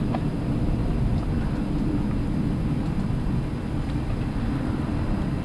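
Steady low rumble of an Airbus A380 on the ground, heard inside the cockpit, with a few faint clicks.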